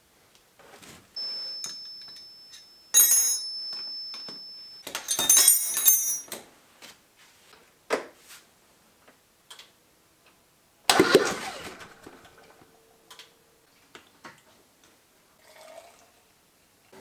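Metal tools and parts clinking and knocking during workshop engine work: scattered clicks, a jangling clatter about three seconds in and again around five to six seconds, and one heavy knock about eleven seconds in that leaves a short ring.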